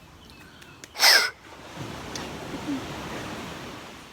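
Sea waves washing onto the beach, a hiss that swells about two seconds in and eases off near the end. A brief, loud voice-like cry comes about a second in.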